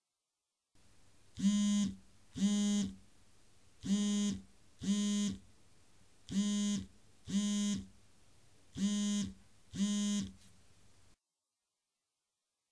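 An electric buzzer sounding in four pairs of short buzzes, about one pair every two and a half seconds, over a faint low hum.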